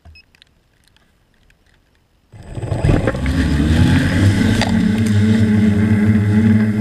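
A quadcopter's four electric motors and propellers spin up suddenly about two seconds in, rising in pitch, then hold a steady loud buzz as it lifts off from the grass. It is heard close up through the camera mounted on the drone.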